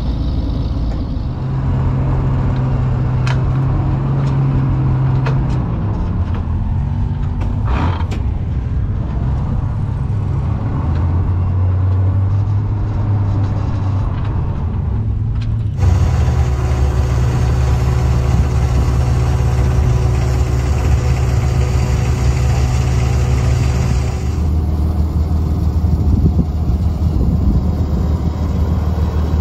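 Vintage off-road wrecker truck's engine running at low speed, its note shifting a few times as it creeps over the sand, with a few light knocks. About halfway through the sound cuts abruptly to a steady engine running with some wind noise.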